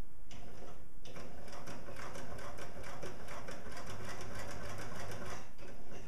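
Sewing machine running a straight stitch through thick folded webbing, a rapid steady run of needle strokes: the first line of a bar tack.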